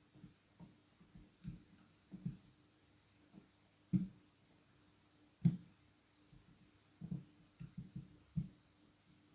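Kinetic sand being cut and scooped: soft, muffled crunches and pats at an irregular pace, the two loudest about four and five and a half seconds in.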